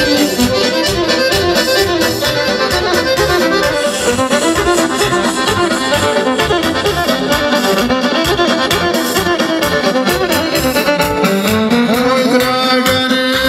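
Folk dance music led by an accordion, with a steady beat.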